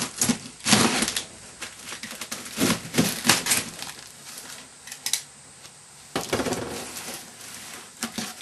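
Cardboard parcel being handled: irregular short bursts of scraping and rustling cardboard and packing, with a longer scrape starting about six seconds in.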